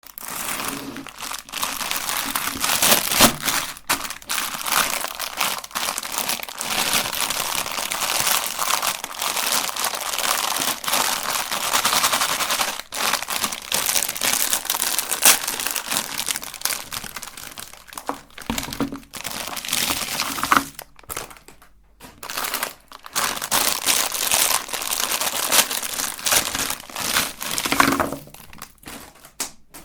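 Meat grinder crushing hard, crunchy candy: a dense run of crackling and snapping, with a few brief pauses about two-thirds of the way through.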